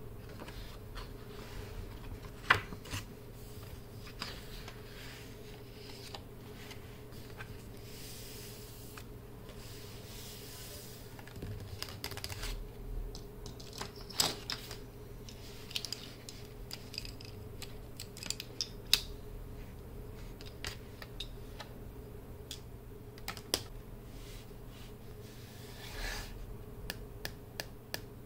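Long fingernails tapping and clicking on a hardcover sketchbook, then the book being opened and hands rubbing and smoothing its paper pages: scattered light taps throughout, with a soft sweep of paper rustle about a third of the way in.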